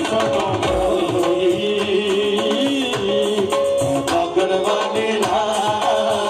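Devotional folk song: a voice singing a wavering melody over instrumental accompaniment and hand-drum percussion.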